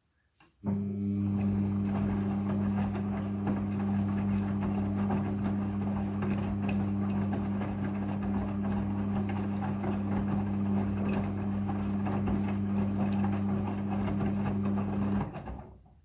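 Front-loading washing machine running its rinse: the drum motor hums steadily as it turns the drum, with laundry and a little water swishing and tumbling inside. It starts suddenly about half a second in and stops near the end.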